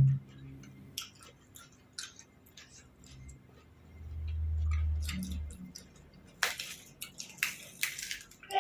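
Close-up eating sounds: soft wet chewing with small mouth clicks, a short low murmur in the middle, then a run of crisp crunching bites in the last couple of seconds.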